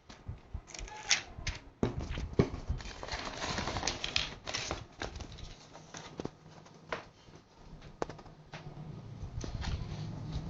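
Clicks, taps and rustling as a smartphone is handled by hand, with irregular sharp knocks, busiest in the first half.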